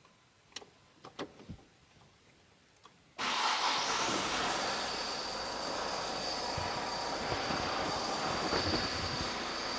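A few faint clicks, then about three seconds in the Opel Zafira's 1.7 CDTI diesel engine starts and runs steadily. It carries the rattling noise of the fault, which turns out to be a broken clutch release bearing.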